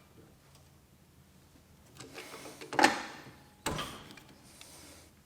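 Oil filter pliers working a spin-on oil filter loose: a scrape and two sharp metal knocks, the louder about three seconds in.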